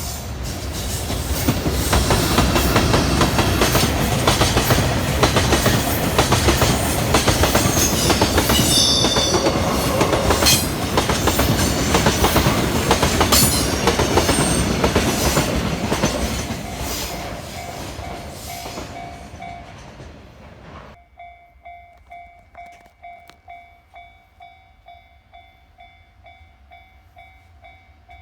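A freight train passes a level crossing close by, its wagons clattering over the rail joints in a dense run of clicks, with a brief high squeal about eight to ten seconds in. The train noise fades out about twenty seconds in, leaving the crossing's warning bell ringing in a steady repeating ding.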